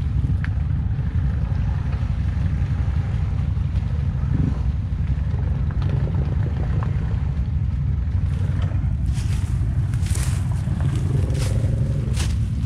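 ATV engine running with a steady low rumble. From about eight seconds in, dry leaves crackle and crunch sharply over it.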